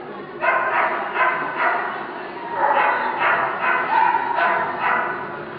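A dog barking repeatedly in quick runs of sharp barks, about two to three a second, with a short pause about two seconds in.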